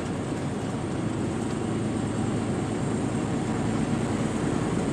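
Steady running noise inside a semi truck's cab at highway speed: the diesel engine's drone under the hiss of tyres on a wet, slushy road.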